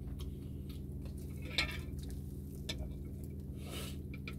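Eating sounds of crispy pata (deep-fried pork leg): wet chewing with small clicks and a short burst about a second and a half in, then a brief rustling tear near the end as the fried leg is pulled apart by hand. A steady low hum runs underneath.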